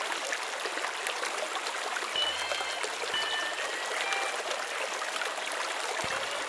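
A steady, even hiss of rushing noise, with a few faint, short, high held tones about two to four seconds in.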